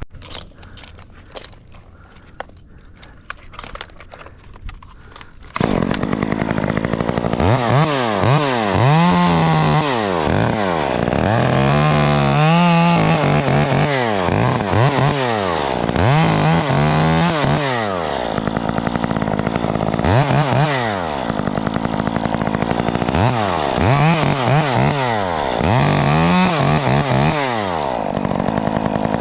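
Two-stroke chainsaw: after a few seconds of light clicks it starts up about five seconds in and runs. It is revved up and let back down about six times, each rise and fall lasting a couple of seconds, as it cuts.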